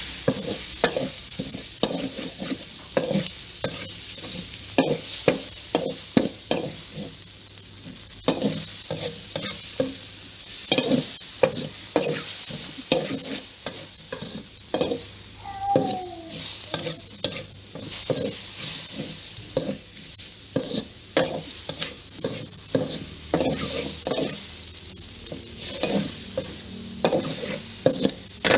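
Food sizzling in a hot pan while a spatula stirs it, knocking and scraping against the pan a few times a second. A brief falling squeak about halfway through.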